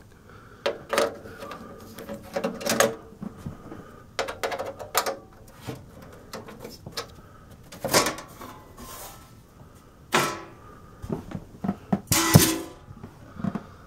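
The metal side panel of a vintage Tektronix 545 oscilloscope being unfastened and taken off. A screwdriver clicks on its half-turn fasteners, then there are scrapes and knocks as the panel is pulled free, and a louder knock near the end as it is set down.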